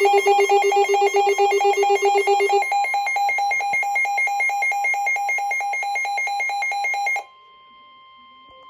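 Weather alert radio's electronic alarm beeping rapidly, a low beep and a higher beep together until the low one drops out about two and a half seconds in. About seven seconds in the beeping stops and the quieter, steady NOAA Weather Radio warning alarm tone follows, announcing a severe thunderstorm warning.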